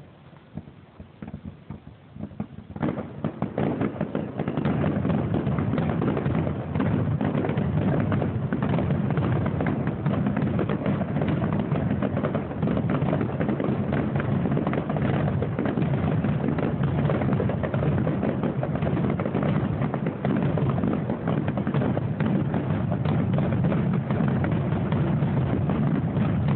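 Aerial fireworks bursting. A few scattered booms come first, then from about three seconds in a continuous rapid barrage of overlapping bangs.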